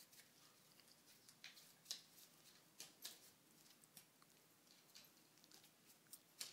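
Faint, irregular clicks and taps of a heavy Magnum Research BFR .45-70 revolver being spun, flipped and caught in the hand. The sharpest click comes about two seconds in and another near the end.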